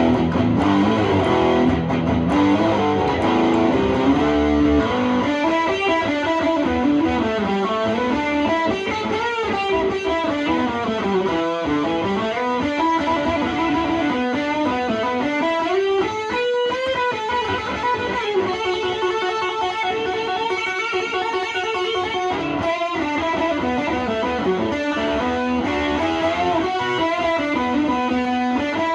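Gibson SG electric guitar played through an amplifier: quick single-note runs that climb and fall in pitch. The playing is fuller and a little louder in the first five seconds.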